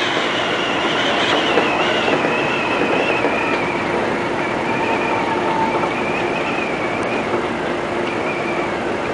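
Seibu 20000 series electric train running along the line, heard from inside the front car: a steady rumble of wheels on rail with a high, wavering whine that drifts slowly lower.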